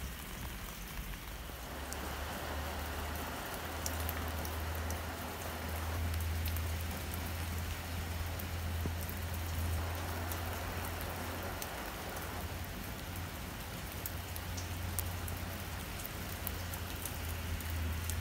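Rain falling on soil and plant leaves, with scattered sharp drop clicks over a steady low rumble.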